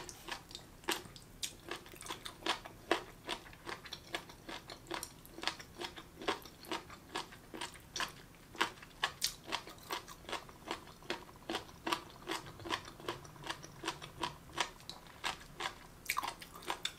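Chewing of sesame-marinated jellyfish: a steady run of short, crisp crunches, about three a second, as the crunchy, gelatinous strips are bitten down.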